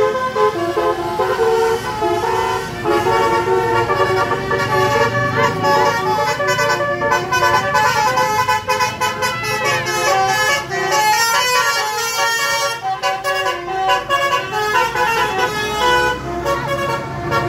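Multi-tone 'telolet' bus horn playing a tune of short stepped notes, several tones sounding together, without a break.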